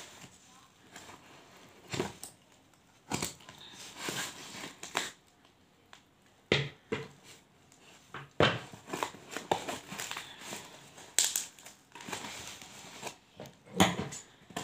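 Large scissors cutting and hands tearing at a taped, plastic-wrapped cardboard parcel: irregular crinkling, crunching and tearing of plastic tape and cardboard in short bursts with pauses between. The heavy taping makes it hard to cut.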